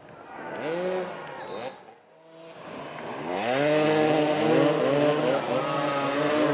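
Motoball motorcycles' engines revving and accelerating, several bikes at once. Their pitch rises in repeated sweeps as they pull away and shift up, with a short drop in level about two seconds in.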